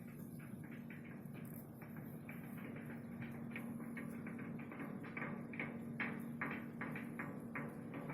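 Rapid, irregular knocking or tapping, several sharp taps a second, getting louder about five seconds in, over a steady low hum.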